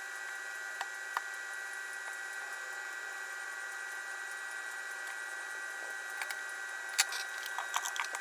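Steady background hiss with a constant high-pitched electrical whine, and a few light clicks and taps from small parts being handled on the workbench, the sharpest about seven seconds in.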